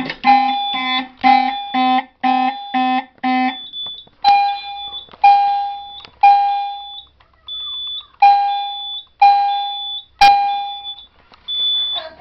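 Fire alarm notification appliances sounding in alarm: a Simplex 4051 horn buzzing in pulses about twice a second together with an EST Genesis chime, until the horn stops about three and a half seconds in. The chime then keeps striking about once a second, each strike ringing out, with a high beep coming on and off and a sharp click near the end.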